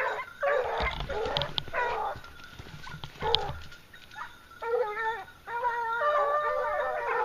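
Hunting dogs baying: a run of short yelps, then a long drawn-out howl from about six seconds in.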